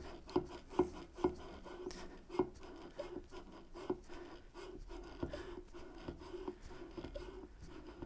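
Plastic 3:1 metering pump on a can of epoxy resin being worked in gentle short strokes to prime it: a run of soft clicks, about two a second, fading in the second half.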